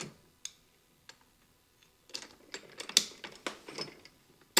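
Light clicks and rattles of the shower chair's frame parts being handled and adjusted, a few single clicks at first, then a quick run of clatter, ending in one sharp louder click.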